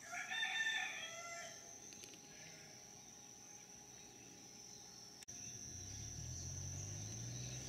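A single bird call, about a second long, near the start, over a steady high insect drone. About five seconds in, the sound cuts with a click to a low steady hum.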